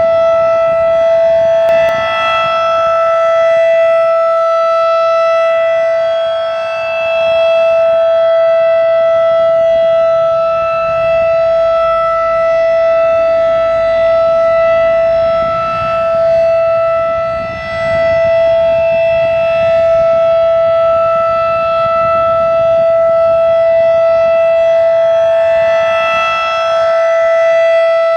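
Federal Signal 2001-DC rotating electromechanical siren sounding a Full Alert steady tone at standard RPM on a monthly test. The pitch holds steady while the loudness swells and dips every few seconds as the horn sweeps around.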